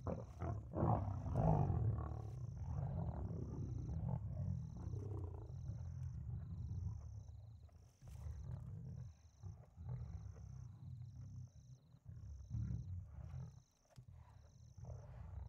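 Lion growling in low, rumbling bursts, loudest in the first couple of seconds and then coming and going more quietly.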